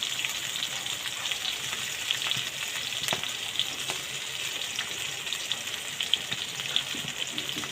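Garlic frying in hot oil in a kadai: a steady sizzle with scattered small pops.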